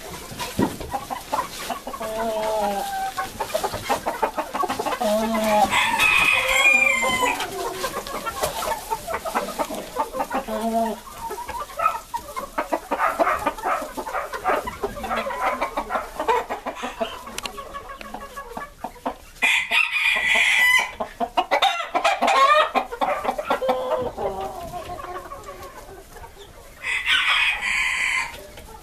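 A flock of Silver Spangled Appenzeller Spitzhauben chickens clucking and calling, many short calls overlapping. Roosters crow loudly twice, about two-thirds of the way through and again near the end.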